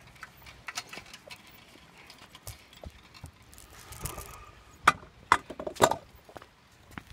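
A string of sharp knocks and clacks, faint and scattered at first, then a loud cluster of knocks about five to six seconds in.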